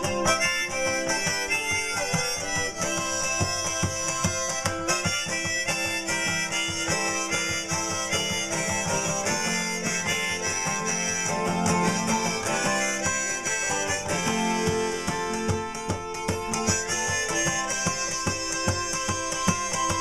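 Harmonica in a neck rack playing an instrumental break over a strummed twelve-string acoustic guitar.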